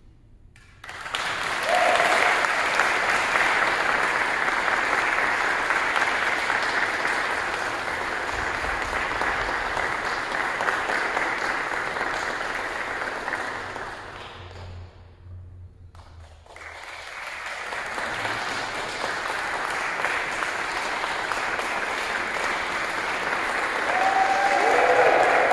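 Audience applause that breaks out suddenly about a second in, dies down briefly a little past the middle, then swells up again and is loudest near the end.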